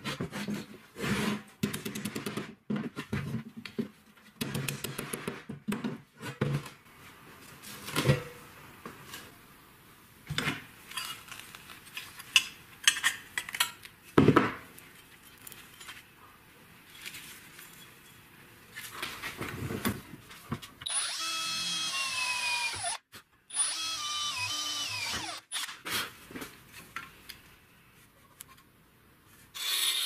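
Workshop tool sounds: scattered knocks and clatter of handling, then an electric power tool running steadily for several seconds with a brief stop in the middle, its pitch sliding as the speed changes.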